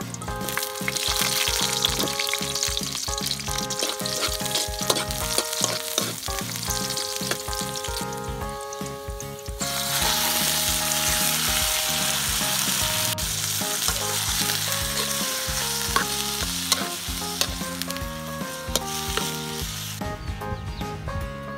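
Sliced garlic and shallots sizzling in hot cooking oil in a wok. About ten seconds in, a batch of raw chicken livers goes into the pan and the sizzle comes back louder, then cuts off near the end. Background music with a melody plays underneath.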